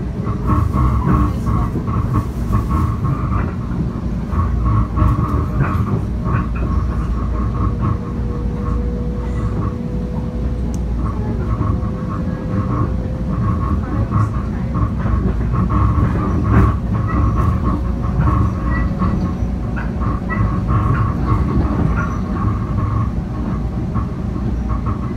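Ride inside a Bombardier M7 electric commuter car moving at speed: a steady low rumble of wheels on rail with scattered clicks from the track, and a high whine that comes and goes. Through the middle, a fainter tone rises slowly in pitch.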